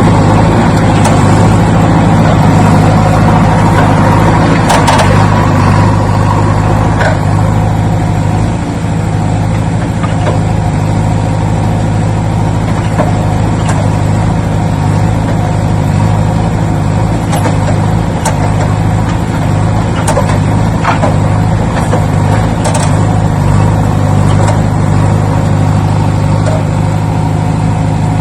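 Engine idling steadily at an even, low pitch, with a few faint clicks over it.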